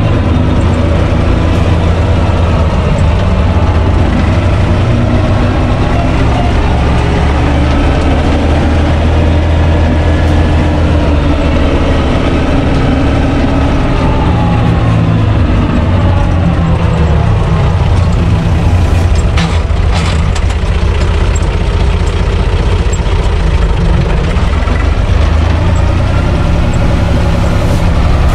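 UTB 445 DT 4x4 tractor's diesel engine running as the tractor drives along, heard from inside its cab. The engine speed dips and rises around the middle, and there are a few sharp knocks or rattles about two-thirds through.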